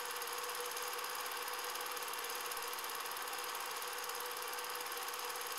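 Cine film projector running: a steady mechanical whir with a fast, even clatter from the film mechanism.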